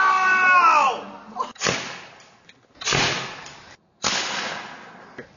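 A person yells for about a second, then a potato gun fires three loud sharp bangs about a second apart, each trailing off quickly.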